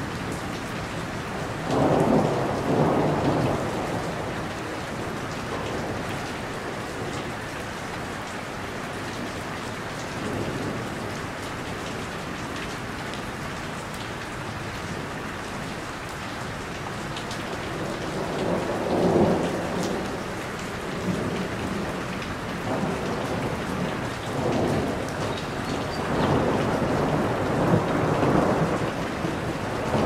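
Heavy rain falling steadily on a roof, a constant hiss of drops, swelling louder in deeper, rumbling surges a couple of seconds in, again past the middle and near the end.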